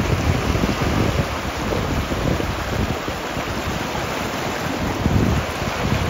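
Wind buffeting the microphone in irregular gusts over the steady wash of ocean surf.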